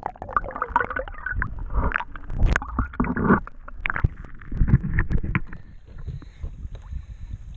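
Water sloshing and gurgling around a camera that is dipped underwater and brought back up through the surface, with irregular muffled rumbles and splashes that settle down near the end once it is clear of the water.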